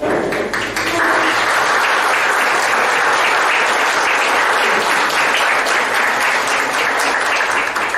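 Audience applauding, a dense clapping of many hands that swells within the first second and then holds steady.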